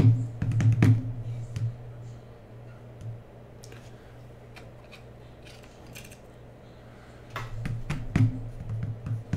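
Hands handling cardboard trading-card boxes on a tabletop: a burst of knocks and taps at the start, a few faint clicks, then another run of knocks near the end, over a steady low hum.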